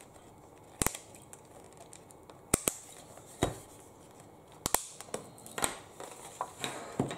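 Plastic packaging and card being handled and opened with a small hand tool: a series of separate sharp clicks and snips, some in quick pairs, with light rustling between them.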